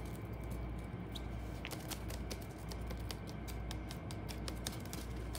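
Handling noise: light, irregular clicks and scratches, a few a second, over a low steady hum.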